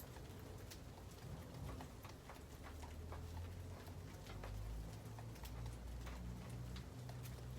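Scattered small clicks and taps from lovebirds, irregular and several a second, over a low steady hum.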